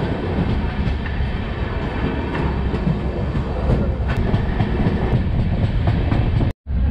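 Passenger train running at speed, heard from an open coach doorway: a steady rumble of wheels on rail with a few faint clicks. The sound cuts out for a moment near the end.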